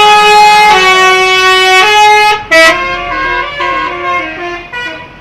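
Indonesian bus 'telolet' musical horn sounding a tune: loud held notes stepping in pitch, then about halfway through a quieter, quicker run of shorter notes that fades out near the end.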